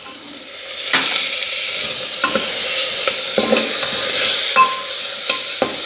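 Minced meat sizzling in a hot pan, the sizzle starting loud about a second in as the meat goes in, with a metal spoon scraping and clinking against the pan several times as it is stirred.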